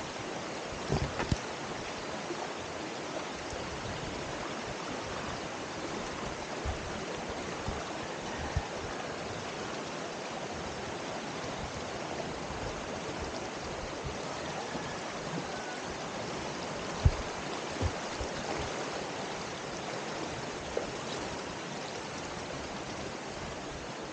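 Shallow mountain stream running over rocks, a steady rushing hiss of water. A few short thumps break through it, the loudest a little past two-thirds of the way through.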